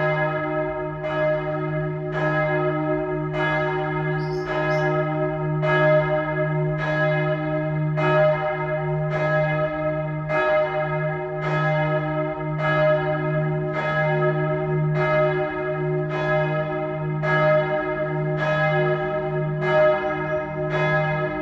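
A single church bell swinging and striking evenly, about once a second, each stroke ringing on into the next: the noon ringing. Its strike note is E-flat (es'), and it is thought to be a Karlsruher Glockengießerei bell.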